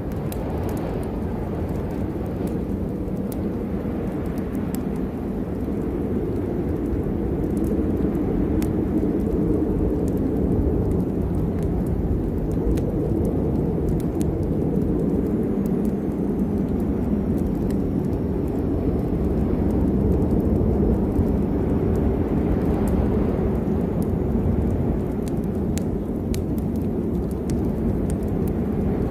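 Ambient storm recording: a steady low rumble that swells a little midway, with scattered sharp crackles throughout.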